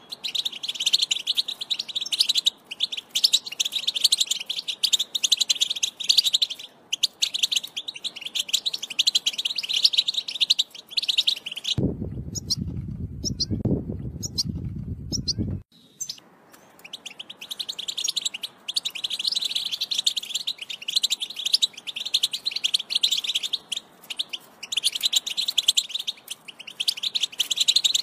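European goldfinch singing: a fast, continuous twittering song of rapid high chirps and trills. About twelve seconds in, the song breaks off for some four seconds and a low rumble takes its place, then the song resumes.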